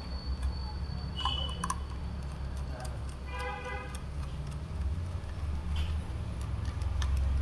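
Small clicks and scrapes of a screwdriver and wire ends working the plastic screw terminals of a single phase preventer relay, over a steady low hum.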